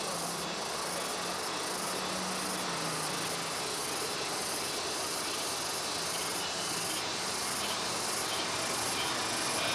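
Insects chirping outdoors in a steady, high-pitched pulse of about two beats a second over a constant hiss. Near the end an aircraft's engine noise starts to swell.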